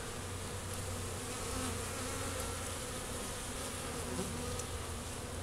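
Swarm of thousands of honeybees clustered on a tree branch, buzzing in a steady, even hum. The swarm has not yet settled.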